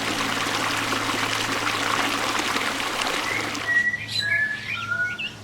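Water splashing and trickling, then in the last couple of seconds a few short whistled notes and quick high chirps, over steady background music.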